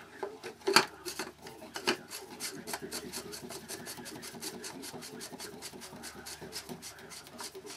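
The oil filter being fitted back onto a Mercedes C220 CDI diesel engine: a couple of knocks, then rapid, even clicking about four times a second as it is screwed down.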